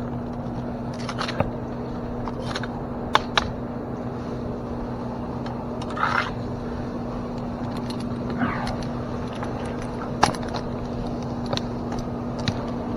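Metal climbing hardware clinking and rope scraping against bark in scattered short clicks and rustles, over a steady low hum.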